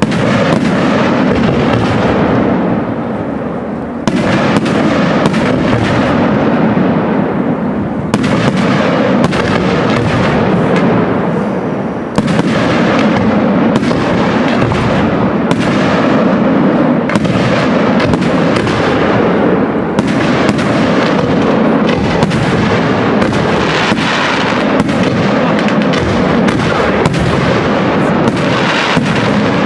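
Aerial firework shells bursting in quick succession: a dense, continuous barrage of bangs with crackling.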